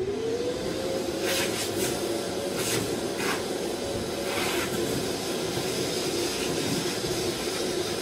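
Shop vacuum or dust extractor starting up, its motor whine rising in pitch over the first half-second and then running steadily with a strong hiss through the hose. Several short rushes in the first few seconds as wood chips from the freshly bored hinge-cup hole are sucked up the hose.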